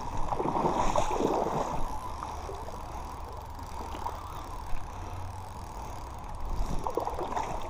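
Steady rushing noise of river water, with a low wind rumble on the microphone, a little louder in the first two seconds and again near the end.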